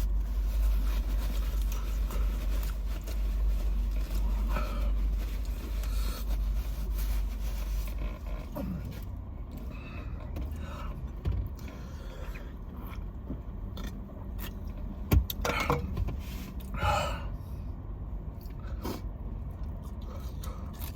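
Low rumble of a car heard from inside the cabin, weakening about eight seconds in, with scattered small scrapes and clicks of food being handled and eaten.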